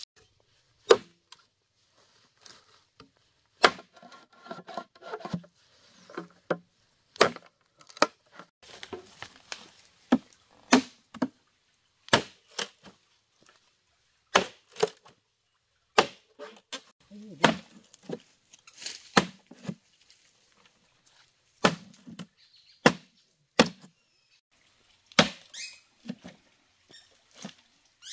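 Sharp knocks of chopping on wood, coming irregularly about every one to two seconds, with faint handling and rustling sounds between strokes.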